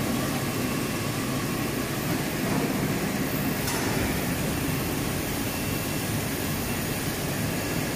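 Steady noise of a running food-processing washing and conveying line: churning water in a bubble washer with its spray bars, and conveyor drive motors.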